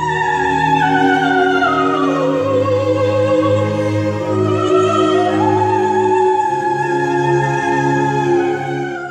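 Soprano singing in operatic style over an orchestral accompaniment with strings, holding long notes with a wide vibrato. The voice slides down about two seconds in and climbs back up around five seconds.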